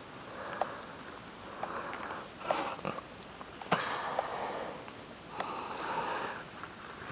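Close nasal breathing, a soft hiss every couple of seconds, over light clicks and scrapes as a rubber-gloved hand handles a plastic ruler against a peeled pummelo. The sharpest click comes a little before the middle.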